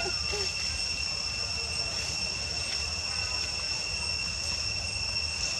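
Steady high-pitched insect drone, two constant whining tones that hold without a break, over a low rumble.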